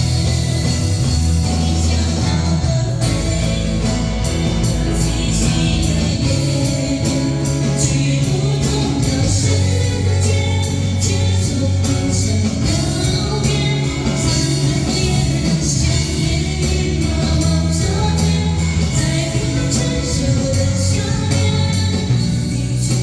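Live band playing a pop-rock song: steady bass and drums with frequent cymbal hits, guitar, and singing.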